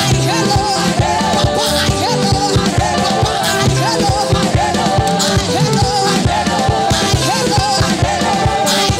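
Live African praise music: a band playing a fast, steady drum beat under singers' voices.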